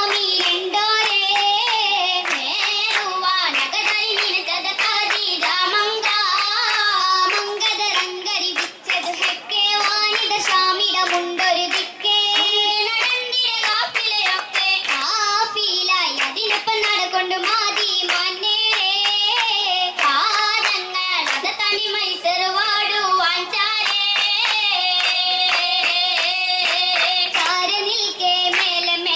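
Oppana, a Kerala Mappila song-and-dance, sung by young female voices in a wavering melodic line, with the dancers clapping their hands in rhythm with it.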